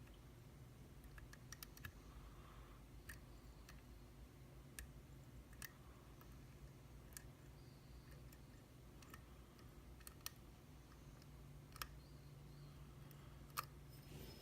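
Faint, irregular metal clicks of lock picks and a tension wrench being handled at a Mul-T-Lock Classic cylinder, over a low steady hum.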